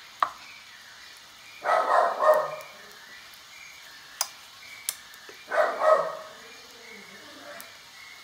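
A dog barking twice, each bark a quick double woof, about two seconds in and again near six seconds, with a few sharp clicks between.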